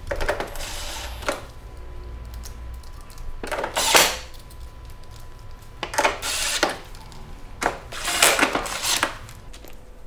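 Clattering and scraping of plastic casing parts and metal screws being handled while a stand air conditioner is put back together, in several short bursts about a second long.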